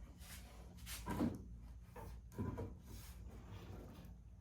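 Soft knocks and rubbing as wooden aircraft parts and measuring tools are handled on a workbench, a few light clunks spread through, over a steady low electrical hum.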